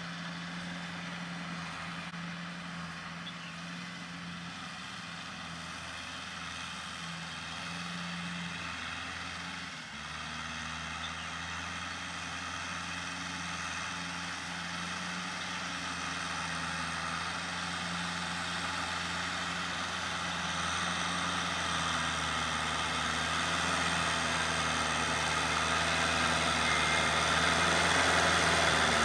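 Diesel farm tractor engine running steadily while the tractor tills a field. It grows louder over the last several seconds as the tractor comes closer.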